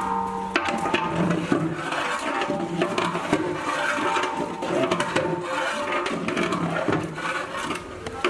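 Long-handled metal ladle stirring chunks of beef in oil and spices in a large aluminium cooking pot: wet sloshing and scraping, with frequent knocks of the ladle against the pot.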